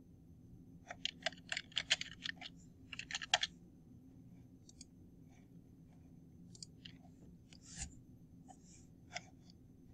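Typing on a computer keyboard: a quick run of about a dozen keystrokes in two bursts, followed by a few scattered single clicks of a computer mouse.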